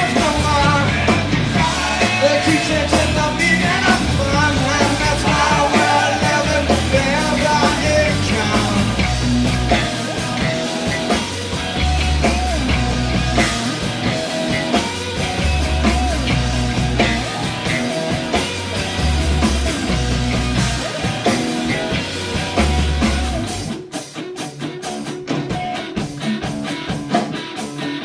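Live rock band playing, loud and full, with pulsing bass and drums under a wavering melodic line. About four seconds from the end the deep bass drops out, leaving the drums and higher parts.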